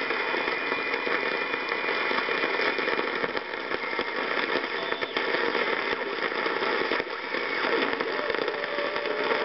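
Static hiss and crackle from a National NC-57M marine-band receiver's loudspeaker on the longwave beacon band, with faint steady whistle tones under the noise. The set has no product detector, so the RF gain and BFO are being balanced to pull a weak beacon out of the static.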